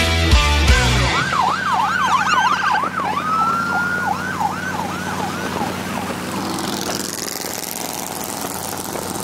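A siren wailing in fast up-and-down yelps, holding one note briefly about three seconds in, then slower wails that fade out about five seconds in, over a steady low engine drone.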